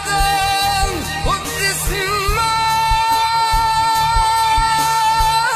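Arabic pop song: an ornamented lead melody bends through quick turns, then holds one long steady note from about two seconds in, over a steady beat.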